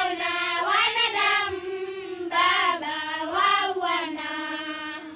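A group of girls singing a song together in Swahili, voices held in long sustained notes.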